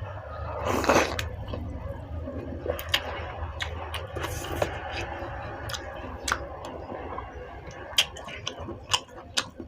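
A person eating noodle soup: light clicks of a spoon or chopsticks against the bowl, a noisy slurp about a second in, and chewing, over a steady low hum.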